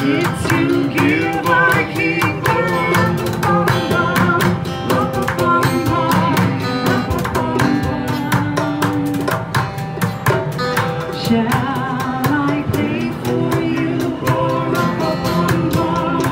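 Live music: a woman singing into a microphone, with a small strap-hung drum tapped with sticks in a steady rhythm over an instrumental accompaniment.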